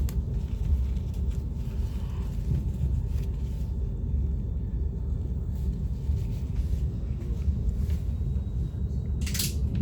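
Steady low rumble of an Italo passenger train heard from inside the carriage, with a brief hiss near the end.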